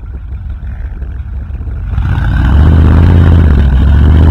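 Full-size SUV's engine rising to high revs about two seconds in and held there under heavy load, as it tows a trailer with a Jeep up a sand dune with its tyres spinning in the sand.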